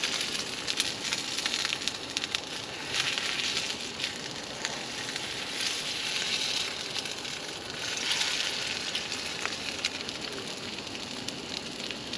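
Eggs sizzling in a small pan on a gas camp burner, the frying swelling in surges as they are stirred, with light clicks of the utensil against the pan.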